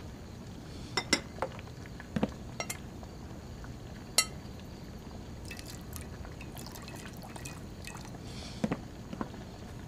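A spoon stirring in a metal basin, giving scattered sharp clinks and knocks against the basin and crockery. The loudest is a single ringing clink about four seconds in, with a few lighter taps near the end.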